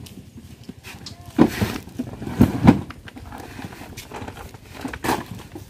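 Plastic crates knocking and thudding as they are stacked onto a truck bed: one loud knock about a second and a half in, two more close together a second later, and another near the end.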